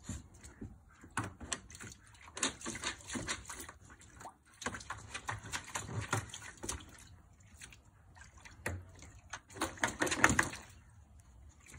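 A beagle splashing and nosing about in shallow water in a plastic paddling pool: irregular slaps and sloshes in three busy spells, with quieter gaps between them.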